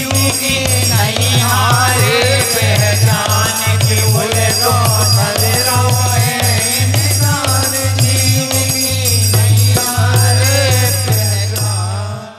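Folk bhajan ensemble playing an instrumental passage. A dholak beats a steady rhythm under a harmonium melody, with jingling percussion on top. The music fades out near the end.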